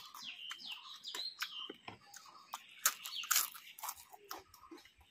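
Close crunching and crackling as crisp fried papad is broken and chewed, loudest about three seconds in, with small birds chirping in the background over the first second or two.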